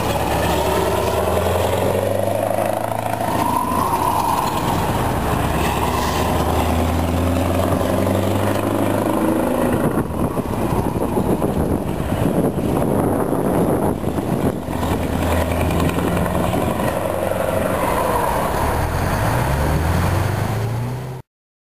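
Scania V8 diesel truck engine running as the bonneted tractor unit pulls away with its trailer, its pitch rising and falling through gear changes and climbing again near the end. The sound cuts off abruptly just before the end.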